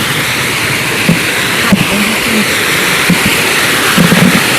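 Steady rush of flowing water, a loud even hiss like a stream or small waterfall.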